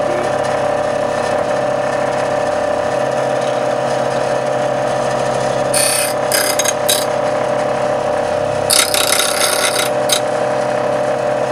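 Bench grinder motor running with a steady hum while a steel drill-bit shank is ground on its wheel: about six seconds in, three short grinding hisses as the shank touches the wheel, then a longer stretch of grinding near the end as the tip is rounded into a detail-cutter profile.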